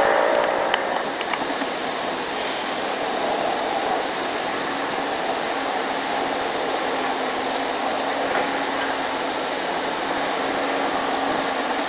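A distant excavator's diesel engine running under a steady rushing hiss, with a faint low hum underneath from about four seconds in. At the very start a closer engine note fades out.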